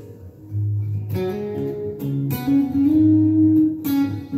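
Guitar played through a Kemper Profiler: a looped guitar part keeps cycling with a recurring low note, and from about a second in a lead tone plays long held notes over it.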